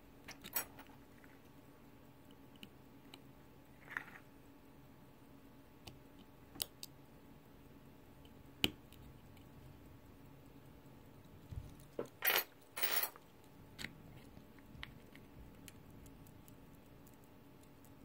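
Small metal pocket-watch parts and tools being handled during reassembly: scattered light clicks and taps, with a short scratchy clatter about twelve seconds in.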